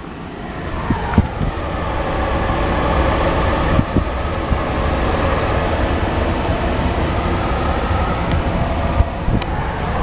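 2017 Ford Police Interceptor Utility's ventilation fan blowing on high, a steady rush of air that grows louder over the first couple of seconds, with the engine idling underneath. A few faint knocks come at about one, four and nine seconds in.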